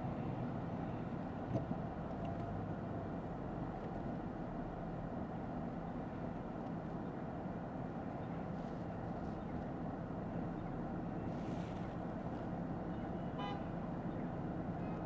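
Steady road and engine noise heard inside the cabin of a moving Lexus ES 350 F Sport, with a short car-horn toot about thirteen seconds in.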